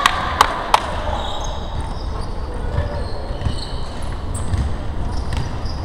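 Sounds of a basketball game on a wooden gym court: three sharp knocks in the first second, then dull thuds of players' feet on the floor as they run, with a few faint sneaker squeaks.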